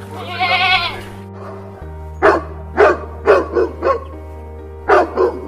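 A goat bleats once with a wavering pitch, then a dog barks about seven times in two short runs, over steady background music.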